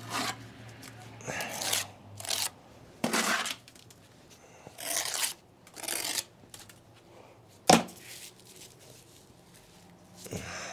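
Steel mason's trowel scraping and slapping mortar onto a brick in a run of short strokes, then a single sharp tap of the trowel on brick. Near the end comes a softer scrape as the buttered brick is pushed into its place in the column.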